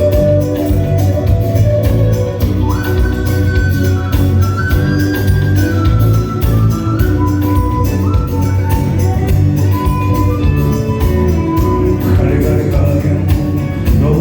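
A live band plays the song, likely an instrumental stretch: a lead instrument holds long stepwise melody notes over a steady drum beat, bass and keyboards.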